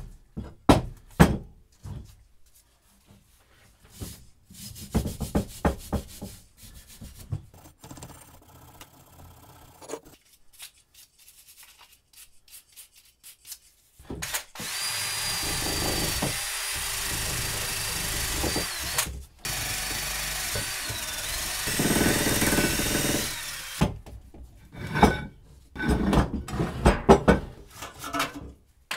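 A power drill spinning a wire cup brush against a rusty cast-iron bench vise part to strip the rust, in two runs of several seconds with a short stop between. Before it come knocks of heavy metal vise parts set down on a wooden bench and a stretch of scratchy rubbing; clanks of handling follow near the end.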